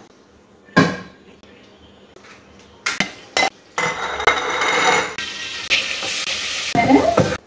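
A spoon clinks against a glass mixing bowl a few times, then marinated chicken sizzles loudly as it is tipped into a hot steel pot on a gas stove. The sizzle cuts off suddenly near the end.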